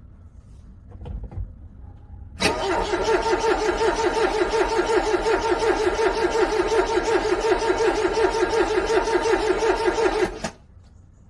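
Cold car engine cranking on the starter for about eight seconds with a steady rhythmic pulse, without catching, then cutting off suddenly. A couple of faint short sounds come about a second in, before the cranking starts.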